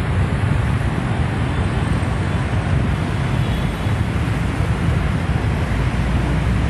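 Steady low rumble of wind buffeting the microphone, mixed with city traffic noise, with no distinct events.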